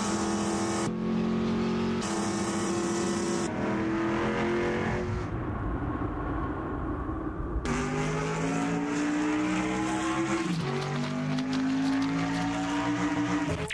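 Race car engines running at speed, their pitch climbing, dropping sharply about ten seconds in, then climbing again as the cars accelerate.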